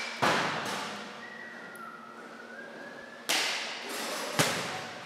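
Bats hitting balls during batting practice in an indoor cage: three sharp hits, the second and third about a second apart, each ringing out in the hall.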